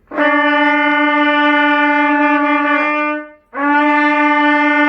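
Trumpet playing a long held E with a steady, clear tone. It breaks off about three seconds in, then the same note starts again and is held.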